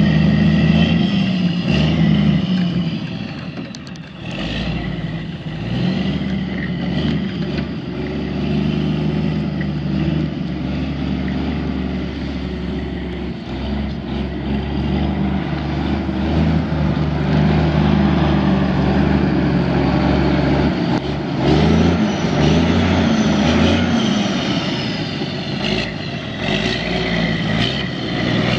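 Cummins N14 inline-six diesel engine of a semi truck running, its pitch rising and falling several times as the engine speed changes.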